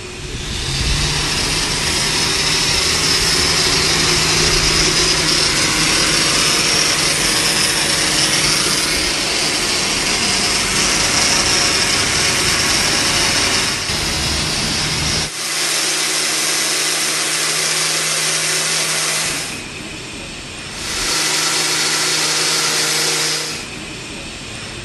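Angle grinder running steadily with a hissing grind as a TIG tungsten electrode is sharpened against its disc, in place of a proper tungsten sharpener. The sound dips briefly about twenty seconds in, picks up again, and eases off near the end.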